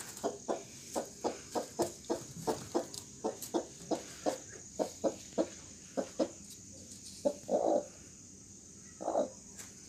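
Broody hen clucking in short, even clucks about three a second, then two longer calls near the end, as she settles onto a clutch of eggs.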